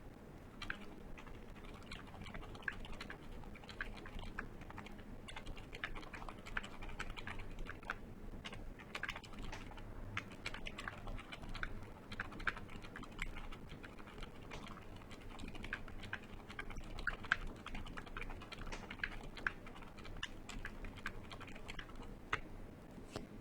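Typing on a KBD67 MKII mechanical keyboard with lubed Gateron Silent Ink switches, POM plate and PBT keycaps: a fast, irregular run of soft, muted keystrokes, with a few louder strokes along the way.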